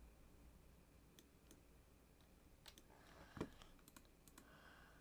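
Near silence broken by a few scattered computer keyboard and mouse clicks in the second half, one of them louder, about three and a half seconds in.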